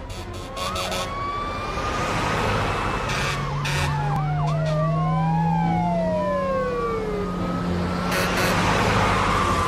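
Fire engine siren wailing in long rising and falling sweeps, with a few quick whooping arcs near the middle, over a steady low engine drone.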